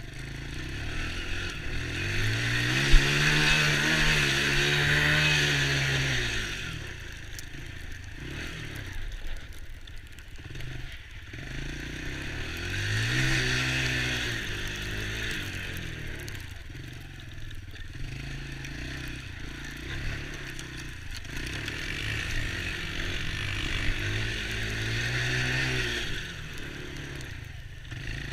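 Small ATV engine speeding up and slowing down in three long surges, its pitch rising and falling with each. A brief sharp knock about three seconds in.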